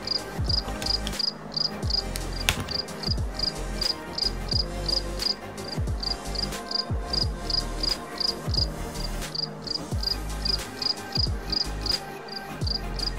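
Steady high-pitched insect chirping, about three short chirps a second with a brief pause every couple of seconds, over background music with a steady beat.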